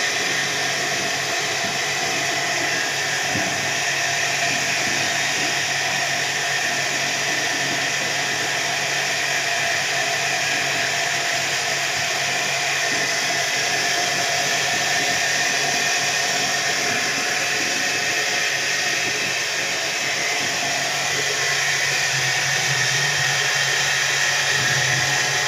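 Water flowing steadily: a continuous, unchanging rushing hiss with a faint steady whine under it.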